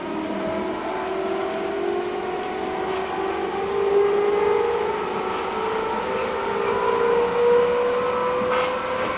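JR Central 211-series electric train heard from inside a motor car, its internal-fan traction motors and gearing whining in a steady pitch that climbs slowly as the train picks up speed, over rolling noise. This car is known for an abnormal, unusually loud running noise.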